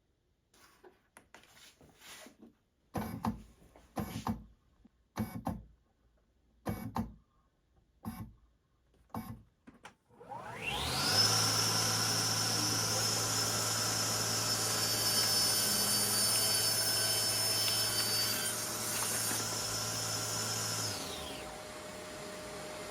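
Several knocks and clunks, then a Festool CSC SYS 50 cordless table saw spins up about halfway through. It runs steadily with a hum and a high whine for about ten seconds, through its first cut in a piece of conti-board. Near the end the saw motor stops, and a quieter steady whir carries on.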